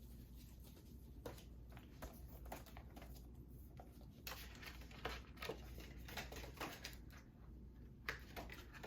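Faint crinkling and tearing of plastic shrink wrap being cut with scissors and peeled off a SteelBook case, in scattered short rustles and clicks.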